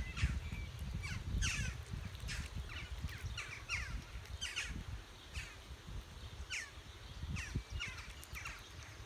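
Birds calling: many short, high calls, each dropping in pitch, one or two a second and sometimes overlapping, over a low rumble.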